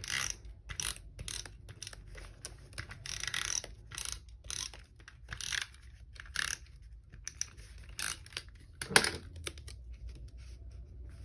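Paper and cardstock being handled at a desk: an irregular run of short crisp rustles, crinkles and snips, with a sharper tap about nine seconds in.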